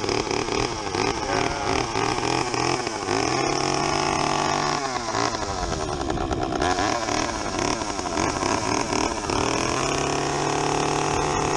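Gas two-stroke chainsaw running just after being started, idling and revved up and down several times, its pitch rising and falling in sweeps.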